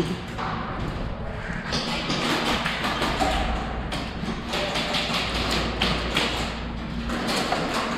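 Footsteps thudding and tapping, several a second, as players move and climb stairs.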